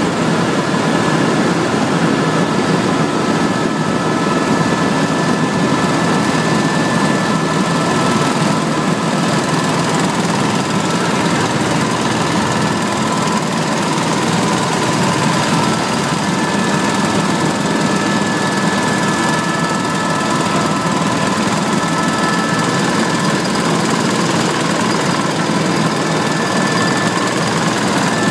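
Helicopter in flight heard from inside the cabin: a steady drone of rotor and turbine with a rapid beat and a few thin, constant whining tones.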